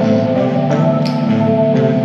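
Background music: held, layered notes that shift every half second or so.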